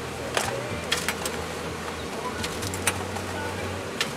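Metal tongs clinking against a metal pan: a few sharp clinks over a steady low hum.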